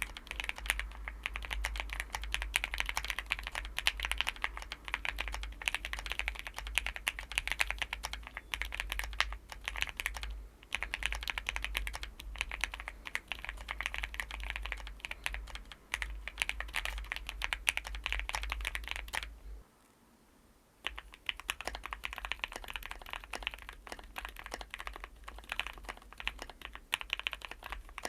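Steady, fast typing on a Zoom65 EE R2 mechanical keyboard with Gateron Oil King linear switches and Novelkeys keycaps, mounted on a polycarbonate plate. After a brief silence about twenty seconds in, typing resumes on the same board fitted with an FR4 plate.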